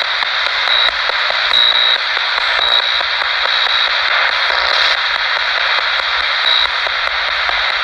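Steady, loud radio static and hiss from a spirit box sweeping through the radio band, with faint short high beeps now and then.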